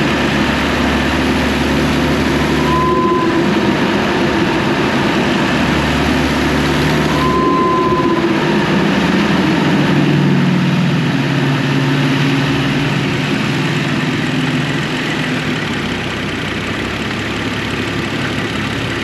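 BMW N55 turbocharged straight-six engine running, its low drone swelling and dropping away. Each time the drone drops, about 3 s and 7.5 s in, there is a short whistle. This is the weird sound linked to the Turbosmart plumb-back blow-off valve fitted with an aluminium inlet.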